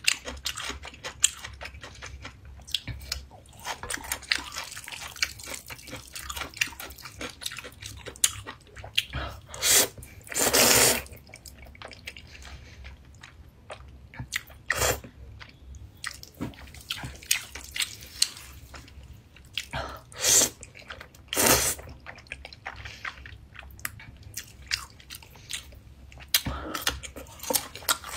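Close-miked eating: crunchy bites and chewing of radish kimchi with spicy fire noodles, with many small wet clicks and crackles. Several loud slurps of noodles cut through, the longest lasting about a second.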